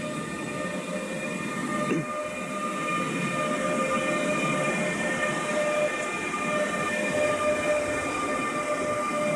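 Siemens ES64U2 Taurus electric locomotive passing slowly with a train of car-transporter wagons. A steady multi-tone electric whine from its traction equipment runs over the rolling rumble, getting louder as it comes close. A short falling tone sounds about two seconds in.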